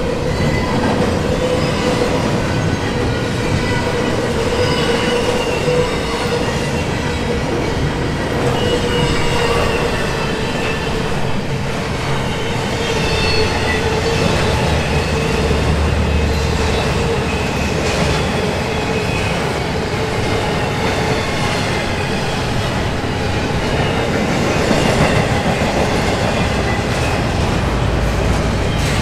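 Double-stack intermodal container cars rolling past at speed: a steady rumble and rattle of steel wheels on the rails, with thin squealing tones from the wheels that slowly drift in pitch.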